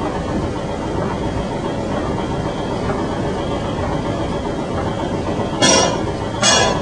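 Water-powered sawmill machinery running with a steady mechanical rumble. Two short, sharp, high-pitched sounds come near the end, about a second apart.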